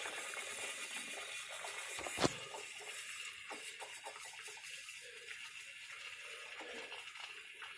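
Hot engine oil being drawn up through a vacuum oil extractor's tube from the snow blower's oil fill tube: a faint, watery flowing sound that slowly fades. One sharp click about two seconds in.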